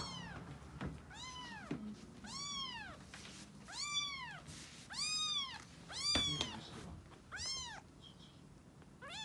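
A cat meowing over and over, about once a second, each call rising and then falling in pitch, with a short pause near the end.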